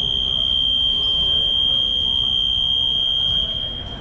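Basketball scoreboard buzzer sounding one long, steady, high-pitched tone that drops in level near the end, over low murmur in the hall.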